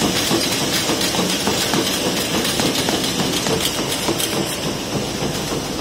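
Radiator production-line machinery running, a steady, loud mechanical clatter of many small rapid clicks over a constant noisy hum.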